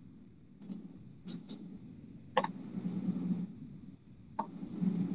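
A quiet pause broken by about five short, sharp clicks spread over the seconds, over a faint low murmur that comes and goes.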